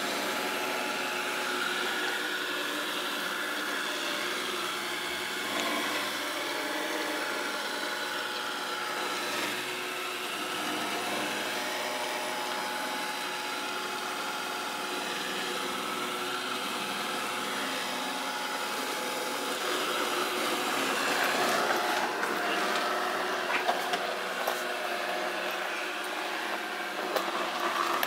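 Samsung SR8751 robot vacuum cleaner running, a steady hum of its suction motor and brushes with a few held whining tones. After about twenty seconds it grows a little louder and sharp clicks and knocks come in.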